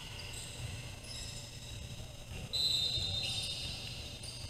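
Basketball game play in a gym: a low rumble of the hall with short high squeaks. One louder, sharper high squeal starts suddenly a little past halfway and lasts under a second.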